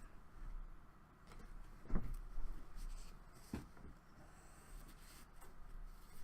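Hands handling trading cards: soft sliding and rustling of cards, with light taps about two and three and a half seconds in.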